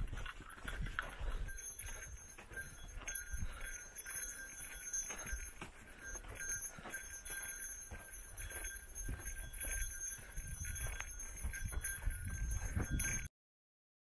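Footsteps on a dirt and rocky trail at a steady walking pace, with a light jingling of a small bell. The sound cuts off suddenly near the end.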